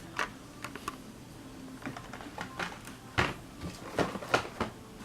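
Diecast toy car packaging being handled: plastic blister cards and cardboard clicking and rustling in irregular bursts, with a few sharper clicks after about three seconds.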